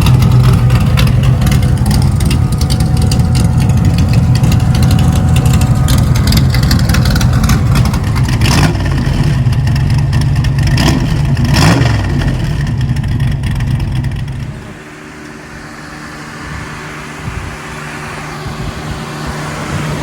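Race truck's engine idling loudly with a couple of brief revs, then shut off about three-quarters of the way through, leaving the electric radiator fans whirring steadily, now pushing air after the overheating fix.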